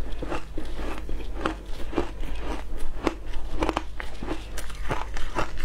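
Matcha-flavoured shaved ice being bitten and crunched in the mouth, picked up close by a clip-on microphone: an irregular run of crisp crunches, two or three a second.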